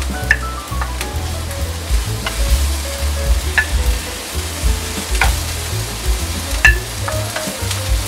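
Bitter gourd slices and red bell pepper strips sizzling in hot oil in a nonstick frying pan, with sharp clicks and scrapes from a wooden spatula stirring and pushing the vegetables. Background music plays underneath.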